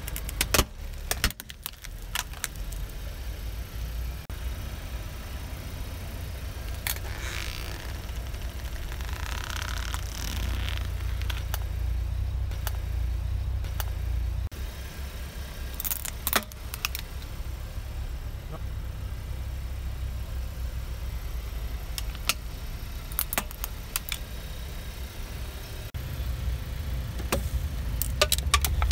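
Car engine running low while its tyre rolls slowly over small objects on asphalt, with scattered sharp cracks, crunches and clicks as plastic toys and a small tin are crushed under the tyre.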